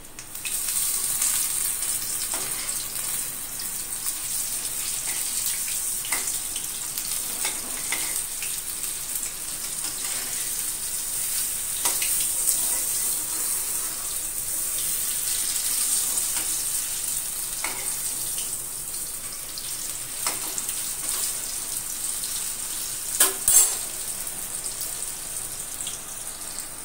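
Batter-coated brinjals sizzling steadily in hot mustard oil in a metal kadai, with scattered clicks of a metal spatula against the pan as the pieces are turned over, and a louder cluster of knocks near the end.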